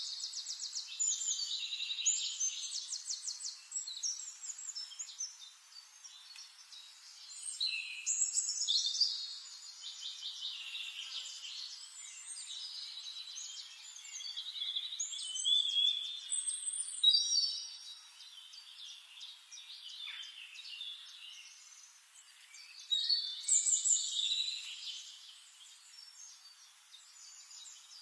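Forest songbirds singing: rapid chirps and trills in repeated bursts every several seconds, with quieter calls in between.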